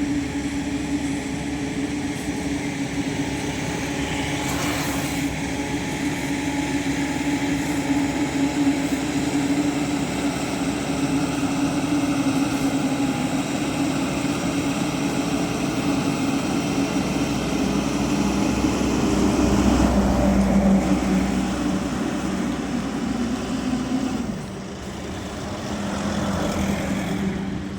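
Road construction machinery engine running steadily with a continuous drone. A deeper rumble swells about two-thirds of the way in, and the sound drops back somewhat near the end.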